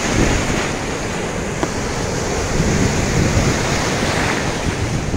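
Breaking waves and surf washing through the shallows, with wind buffeting the microphone.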